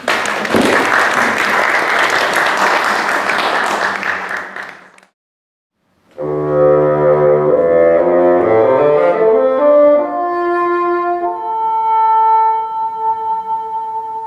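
Audience applause for about five seconds, cut off abruptly. After a second of silence, closing music begins: sustained instrumental chords whose notes shift and then settle into one long held tone.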